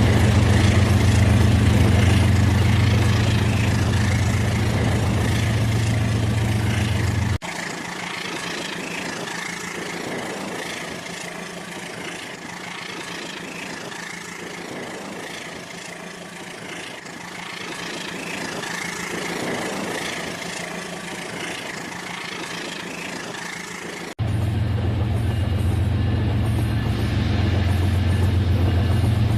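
Battery-powered toy train running on its track: a steady low motor hum with fine rattle from the wheels. About seven seconds in, the sound cuts abruptly to a quieter, more rattly stretch, and it switches back to the hum near the end.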